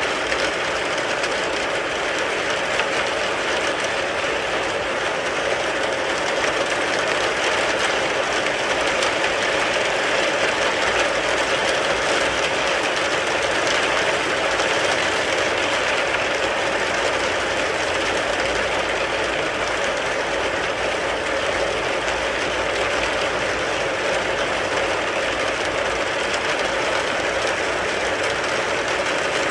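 Rain falling steadily on a car, a dense, even patter that does not let up.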